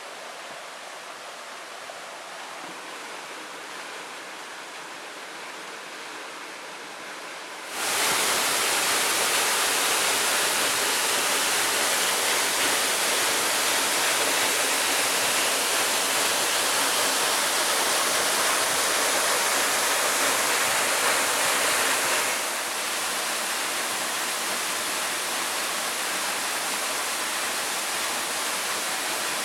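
Steady rushing of falling water from a waterfall, fairly quiet at first, jumping suddenly much louder about eight seconds in and dropping back somewhat near two-thirds of the way through.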